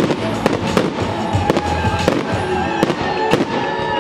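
Aerial firework shells bursting in quick, irregular succession, several sharp bangs a second, over a music soundtrack for a display fired to music.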